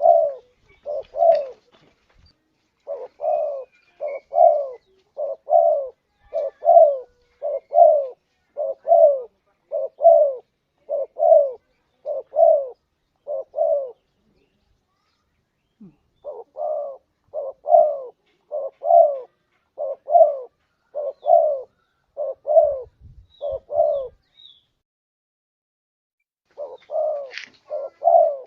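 Spotted doves (tekukur) cooing in a lure-call recording: long runs of short, evenly spaced coos, about one every three-quarters of a second, with a break of a couple of seconds near the middle and another near the end.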